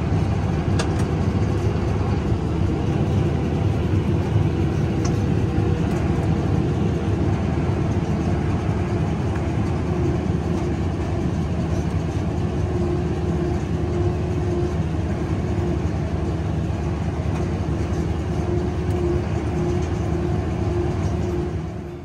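Steady drone of a Massey Ferguson 5S.145 tractor pulling a Massey Ferguson 1842S small square baler through wheat straw, heard from inside the tractor cab.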